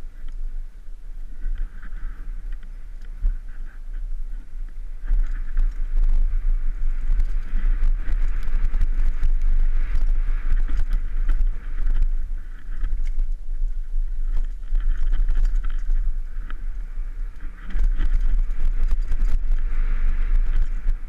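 Mountain bike running fast down a dirt trail, heard from a helmet-mounted camera: heavy wind buffeting on the microphone, tyres on loose dirt with a hiss that swells and fades with speed, and scattered rattles and knocks as the bike goes over bumps.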